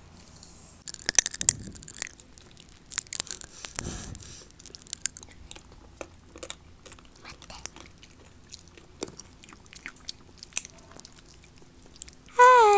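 Popping candy crackling in the mouth: many small sharp pops and clicks at irregular intervals, mixed with chewing.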